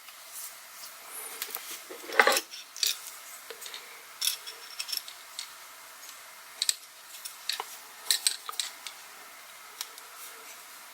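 Small plastic and metal gimbal accessories being handled: scattered light clicks and taps, with one louder knock about two seconds in.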